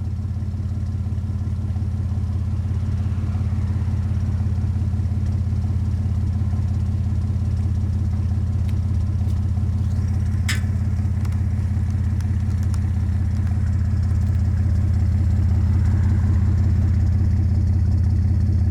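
2001 Chevy S-10 pickup idling steadily through a Cherry Bomb muffler with a side-exit exhaust. There is a single short sharp click about halfway through.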